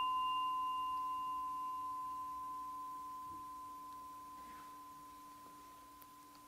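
The long ring of a single strike on a small bowl bell: one clear steady tone over a fainter lower hum, fading slowly and evenly.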